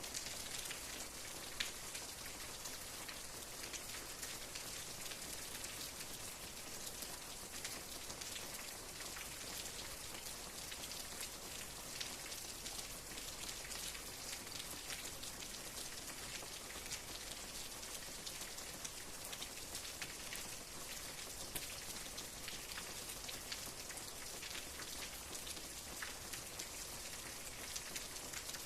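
Steady rain falling on a surface, an even hiss with many small, distinct drop ticks.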